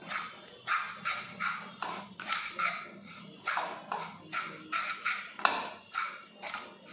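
Flat spatula scraping and stirring crumbly roasting gram flour (besan) around a non-stick frying pan, in quick rhythmic strokes of about two to three a second, the loudest scrape a little past the middle.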